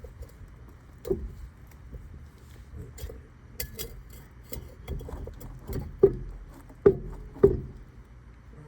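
Irregular knocks and clunks, several with a short metallic ring, as a travel trailer's wheel and tire are handled and worked onto the hub. The loudest knocks come about a second in and three more near the end.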